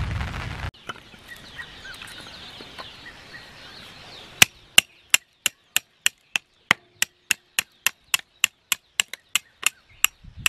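Small hatchet splitting firewood into kindling: a steady run of about twenty sharp chopping strikes, roughly three a second, starting about four seconds in. A brief burst of rain noise is heard at the very start.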